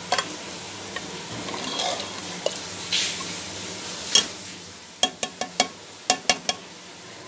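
A metal spoon stirring mutton curry in an aluminium pressure cooker, then about seven quick, sharp metallic taps on the cooker from about five seconds in.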